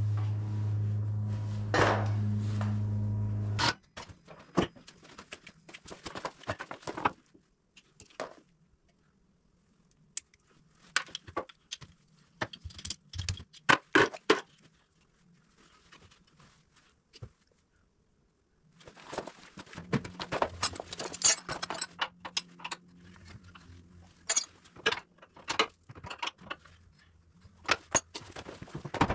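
A held musical tone ends sharply about three and a half seconds in. Then come scattered metallic clinks, clicks and rattles of hand tools and fasteners on the front of a Can-Am Defender side-by-side, with a quiet spell about halfway through.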